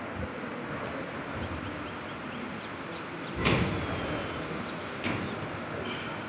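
Steady background noise of a large hall, broken about halfway through by one loud thud that rings on in the room's echo, and a smaller knock about a second and a half later.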